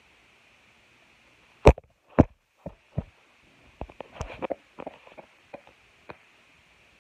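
A string of sharp knocks and bumps from the phone and the toys being handled. Two loud ones come about two seconds in, then a quick cluster of lighter taps around four seconds, then a few scattered taps.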